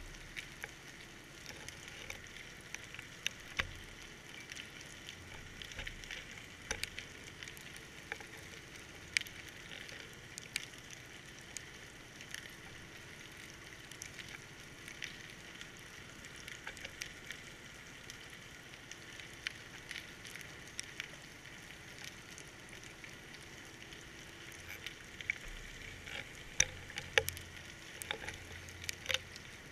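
Underwater ambience heard through a GoPro's waterproof housing: a faint steady hiss with scattered sharp crackling clicks, which come thicker and louder near the end along with a few low thuds.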